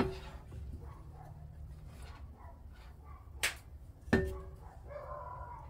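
Metal engine parts and tools clanking against each other and the workbench during VW engine assembly: a sharp clank at the start, a lighter click about three and a half seconds in, and the loudest clank about four seconds in, the clanks ringing briefly.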